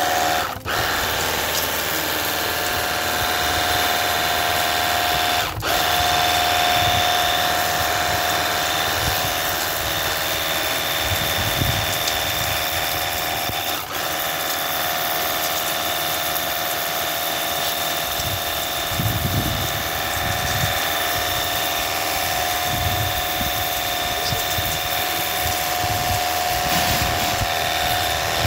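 Cordless 48 V battery-powered pressure washer gun running with the trigger held, its motor and pump giving a steady whine over the hiss of the water jet striking concrete. There are a few brief breaks in the sound.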